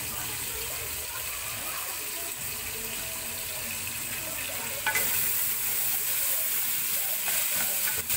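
Pork pieces sizzling in hot oil in an aluminium pressure-cooker pot: a steady hiss that gets louder about five seconds in.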